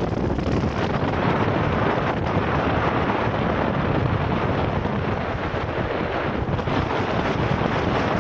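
Wind buffeting the microphone on the deck of a moving ferry, over the low rumble of the ship and the rush of its wake along the hull.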